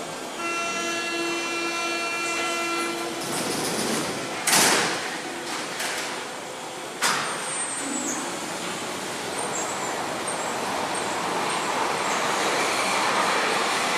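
Berlin U-Bahn train at a platform. A steady door-closing warning tone sounds for about three seconds, the doors bang shut about four and a half seconds in, and another sharp bang follows a few seconds later. Then the train's running noise builds as it pulls out.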